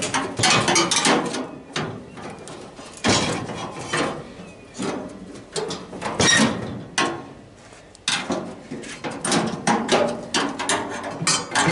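A long screwdriver knocking and scraping against the sheet-metal housing and panels of a scrap unit, as someone works it in to reach a screw. The result is irregular metallic clanks and rattles, with a brief lull about two seconds in and again around seven seconds.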